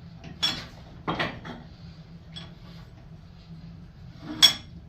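Sharp metallic clanks of steel work pieces and vise parts being knocked and handled. There are three clanks, the last near the end the loudest, each with a brief metallic ring.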